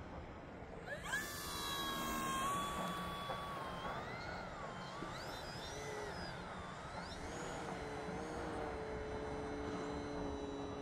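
Electric motor and propeller of an FMS Cessna 182 RC plane whining in flight. About a second in the pitch jumps up sharply, then wavers up and down as the plane manoeuvres, and from about seven seconds in it settles into a lower, steadier drone that slowly falls.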